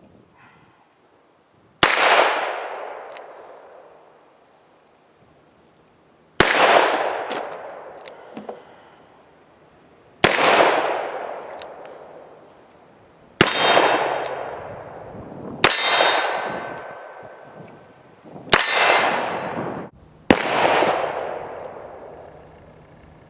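Seven .45 ACP revolver shots from a Smith & Wesson Model 1917, fired singly a few seconds apart. Each shot has a long echoing decay, and two of them near the middle carry a lingering metallic ring.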